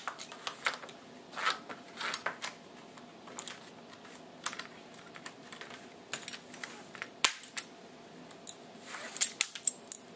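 Irregular light clicks and clinks of a rifle sling's metal buckle and clip being handled while the sling is worked off a drill rifle, with a quicker run of clicks near the end.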